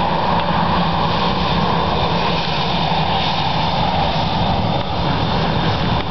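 Boeing 737-700's CFM56-7B turbofan engines running steadily at taxi power: an even jet rumble with a thin high whine over it.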